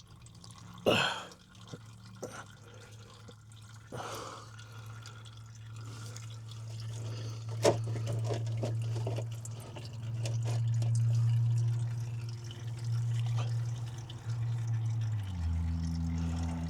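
Engine oil dripping and then running in a thin stream from a partly unscrewed oil filter into a drain pan, with a few sharp knocks from handling the filter and wrench. A low steady hum underneath grows louder, then drops in pitch near the end.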